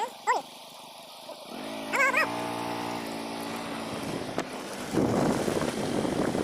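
A few short wavering yelps, then a motor engine running steadily for a few seconds. It gives way about five seconds in to a loud, even rushing noise from flood water or wind.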